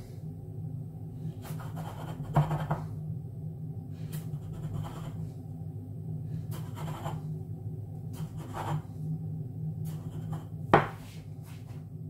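A small tea glass pressed and twisted down through rolled dough onto the worktop, a short rub or knock with each cut every second or two, and one sharper clack near the end. A steady low hum runs underneath.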